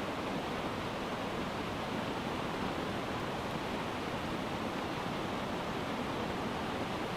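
Small waterfall in spate after heavy rain, its water rushing as a steady, even roar.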